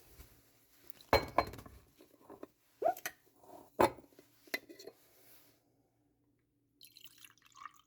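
Glassware and cutlery clinking and knocking: several separate sharp clinks spread over the first five seconds or so, as a drink of pickle juice is got ready.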